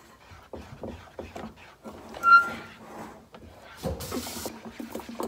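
Spatula stirring thick custard in a saucepan on the stove, with irregular scraping and light knocks against the pot. A short high-pitched squeak about two seconds in is the loudest sound.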